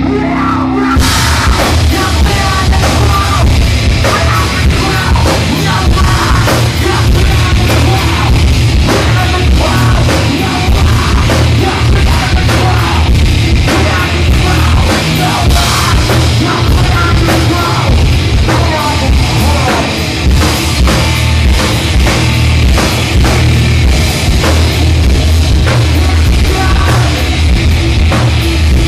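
Live heavy rock band playing loud, with distorted guitars and a drum kit; the full band comes in suddenly about a second in after a lone guitar.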